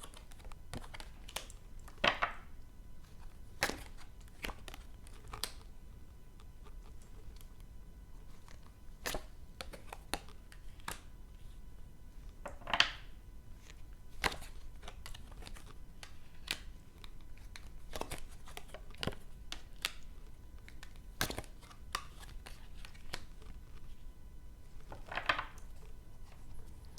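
Tarot cards being handled and laid down on a table: scattered short slaps and rustles of card at irregular intervals, a few louder than the rest.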